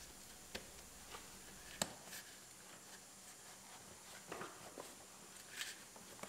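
Quiet handling noise: a few small sharp clicks and light rustles as a car seat's foam cushion and upholstery are worked onto the seat-back frame, with a cluster of clicks about two thirds of the way through.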